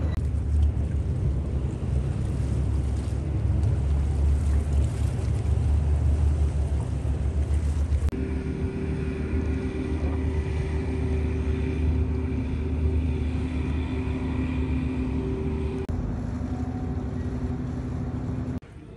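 Wind rumbling on the microphone over open water. From about eight seconds in comes a steady boat-engine drone, which drops away just before the end.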